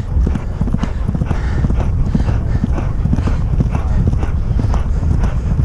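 A horse galloping on grass turf: a steady, rhythmic run of hoofbeats, heard from the rider's helmet over a steady rush of wind on the microphone.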